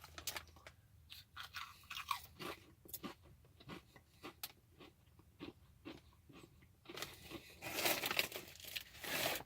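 Crisp potato chips being chewed, with repeated short crunches. It gets louder and denser in the last couple of seconds.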